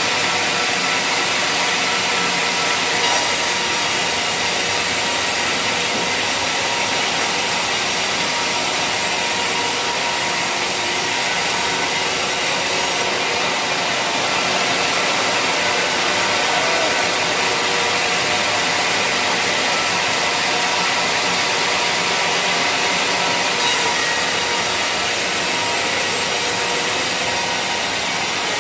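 Sawmill saw cutting waru (hibiscus) wood, running steadily through the log with a dense, hissing cut; the high hiss shifts in strength every ten seconds or so.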